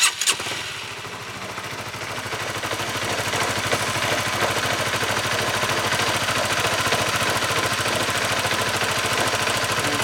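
Honda CBR150R single-cylinder engine running, heard up close at the clutch side cover, with a steady metallic knocking rumble inside. The noise comes from a broken bearing inside the engine that has also made the clutch housing noisy.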